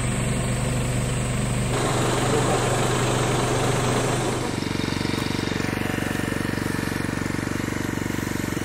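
Truck engine idling steadily. The sound changes abruptly twice, about two seconds in and again at about four and a half seconds, the second time to a lower, fast and even pulsing run.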